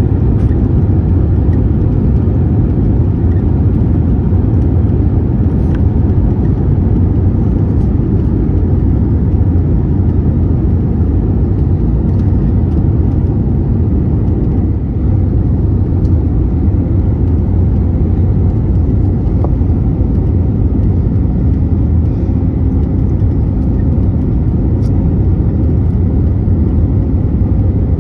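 Steady low cabin roar inside an Airbus A321neo airliner, from its engines and the air rushing past the fuselage.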